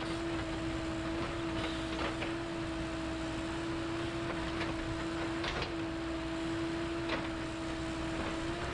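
A machine motor running steadily at one constant pitch, with a few faint clicks.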